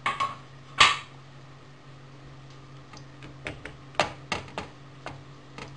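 Wooden spatula knocking and scraping against a nonstick frying pan while stirring cubed boiled potatoes. There are two sharp knocks in the first second, then a run of lighter taps around four seconds in, over a faint steady low hum.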